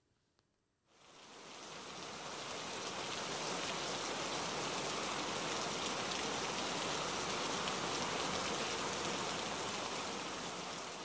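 Rain pouring down and splashing on a wet surface, a steady even hiss that fades in about a second in and eases off slightly near the end.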